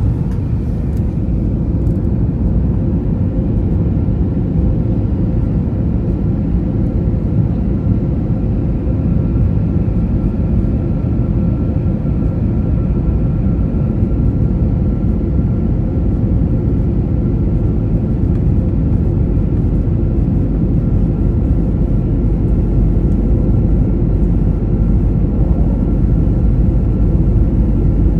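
Airbus A320 cabin noise in flight: a steady rumble of engines and airflow with a faint steady whine above it, growing a little louder near the end.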